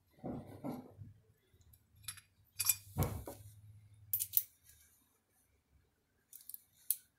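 Small metal valve-spring parts (spring collars and shims) being handled on an aluminium cylinder head: a few sharp clicks and clinks, loudest about three seconds in, with more near the end.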